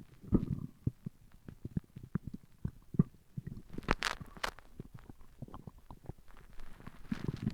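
Human stomach growling: an irregular run of short gurgles and pops, with a louder, sharper burst about four seconds in.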